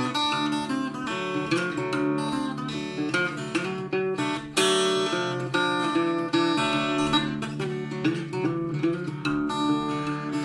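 Small-bodied acoustic parlour guitar fingerpicked in a ragtime blues style: an unaccompanied instrumental break with a run of picked treble notes over a steady bass.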